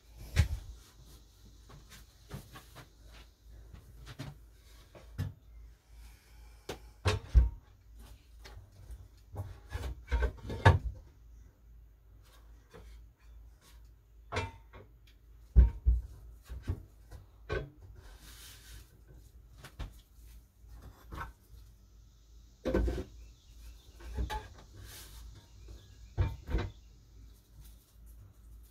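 A wooden shelf board being handled and fitted onto metal shelf brackets: scattered knocks, clunks and wood-on-wood rubbing, irregular and a few of them sharp.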